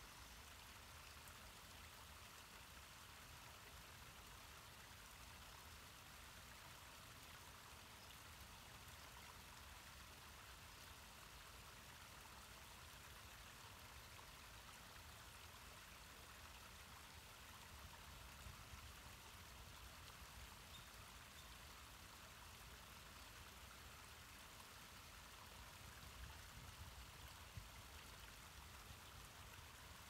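Faint, steady rush of a creek's small waterfall, close to silence, with a few faint ticks in the second half.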